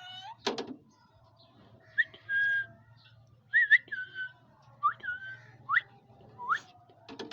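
Pet parrot whistling: a string of about seven short whistles, several sweeping sharply upward in pitch.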